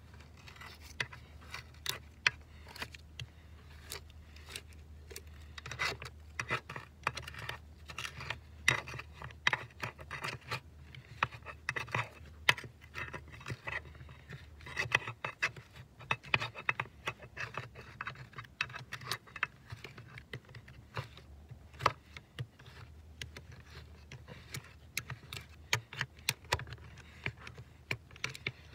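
Gloved hands scraping and picking frozen mud out of a mini excavator's track frame: a steady run of irregular scrapes and sharp knocks of dirt clods against the metal, over a low steady hum.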